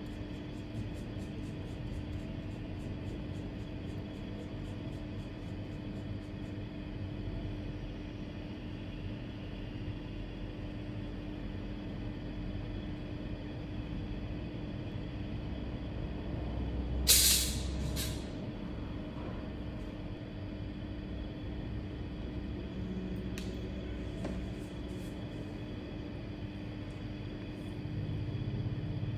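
Steady electrical or machine hum, broken a little past halfway by two short, loud hisses like a blast of air.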